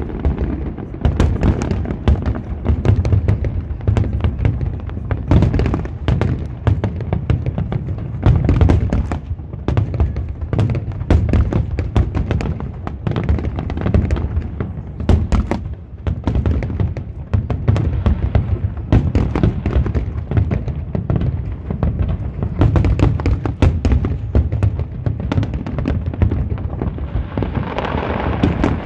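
Aerial fireworks shells bursting in a continuous barrage, a dense run of booms and crackles with heavy low thuds. A steadier rushing sound builds near the end.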